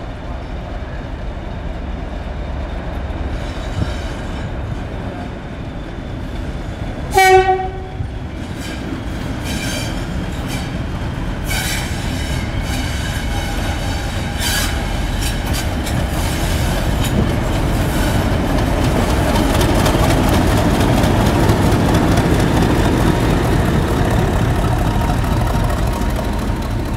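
Class 50 diesel locomotive arriving: one short, loud horn blast about seven seconds in, then its English Electric 16-cylinder diesel engine running louder and louder as it draws in alongside, with a few clicks from the wheels on the rails.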